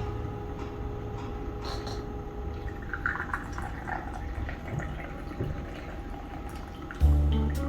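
Brewed tea being poured, a steady trickle of liquid. Background music comes in loudly near the end.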